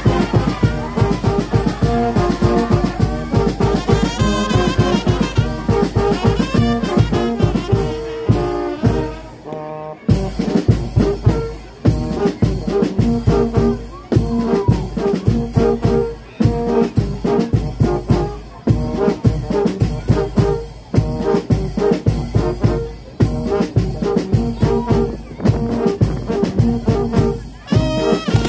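Brass band music: horns playing held notes over drums with a steady beat, breaking off briefly about ten seconds in.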